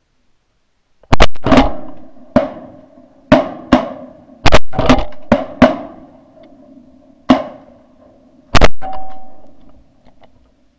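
About a dozen sharp metallic clangs and knocks at irregular intervals, starting about a second in, each ringing briefly at the same few pitches.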